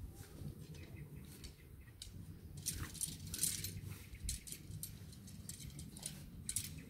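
Segmented tent poles clinking and rattling as they are handled and pushed through the tent, with scattered clicks and a denser clatter about three seconds in.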